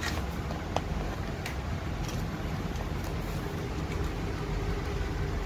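A steady low rumble of background vehicle noise, with a few light clicks and taps as motorcycle wiring and plastic connectors are handled.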